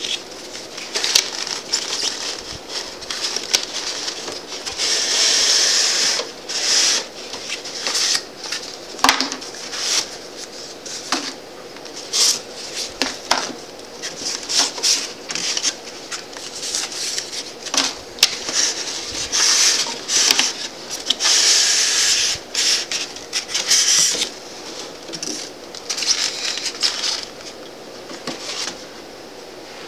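Cardboard box and its packing being handled: rustling and scraping as things are pulled out, with several stretches of scratchy hiss and many sharp clicks and knocks.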